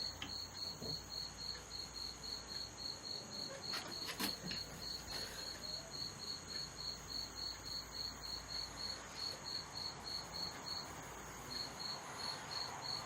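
A cricket chirping steadily at about four chirps a second, with a short break near eleven seconds in. A single sharp click of handling about four seconds in.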